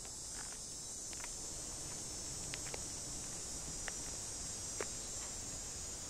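Cicadas buzzing steadily in a high, even drone, with a few scattered footsteps on dirt.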